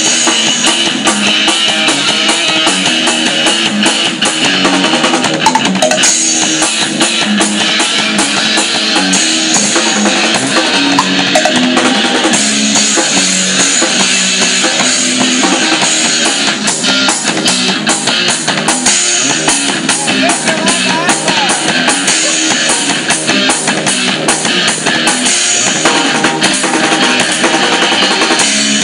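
Rock music with a drum kit and guitar playing continuously and loudly, the drums beating steadily throughout, with little deep bass in the recording.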